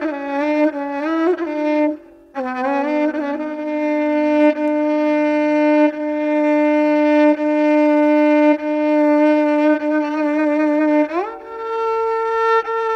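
Solo violin improvising a Turkish taksim in makam Kürdilihicazkâr. A short phrase breaks off about two seconds in, then one long note is held for about eight seconds and swept quickly up to a higher note near the end.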